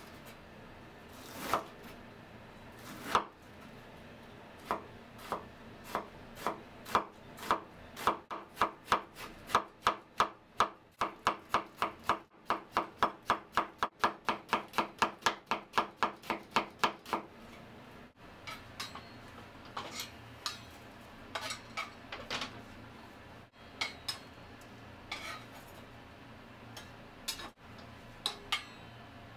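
Kitchen knife shredding cabbage on a wooden cutting board: a few separate chops that turn into a quick, even run of about three strokes a second, then stop. Later come scattered light knocks and scrapes of a metal spatula in a frying pan of sausages.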